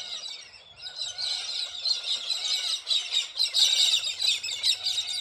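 A flock of birds calling and chirping together, many high calls overlapping in a continuous chatter that grows denser about a second in.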